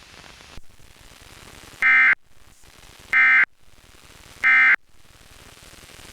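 EAS SAME end-of-message data bursts sent by an EAS decoder: three short, loud, buzzy digital tone bursts about a second apart, marking the end of the emergency alert.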